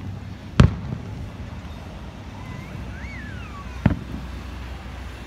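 Two distant firework bursts go off about three seconds apart, the first the louder, followed by a short echo. Between them a faint whistle rises and then falls.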